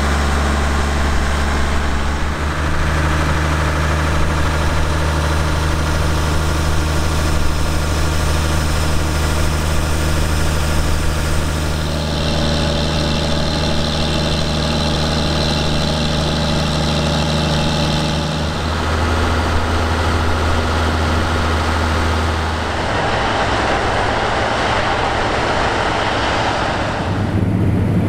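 John Deere 9520 four-wheel-drive tractor's Cummins 15-litre six-cylinder diesel running at a steady speed, close up. Its note changes abruptly three or four times, and near the end a broader rushing noise comes in over the engine.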